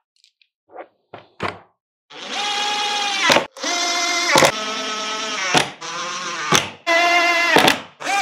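Cordless drill/driver driving screws into a board. Its motor whine runs in stretches of about a second, broken by sharp clicks, from about two seconds in. A few light plastic clicks come before it.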